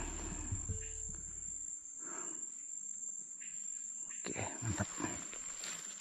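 Insects chirring in one steady high tone, with scattered rustling and a few soft knocks from handling, busiest about four to five seconds in.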